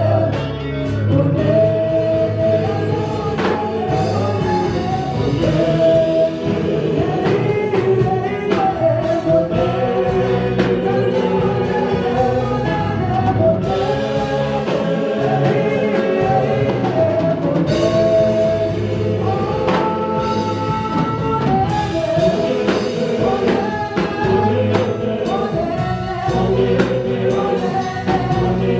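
A live gospel worship song: several voices singing together over a band with drums and bass keeping a steady beat.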